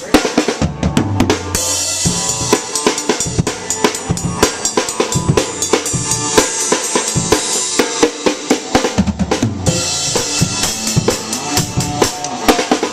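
Rock drum kit played hard and fast, with kick drum, snare and cymbals struck in quick succession and a continuous cymbal wash.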